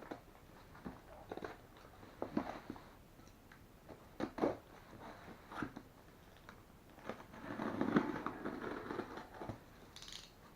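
Cardboard product box and its packaging being opened and handled: scattered light clicks and crackles, with a longer rustle about seven to nine seconds in.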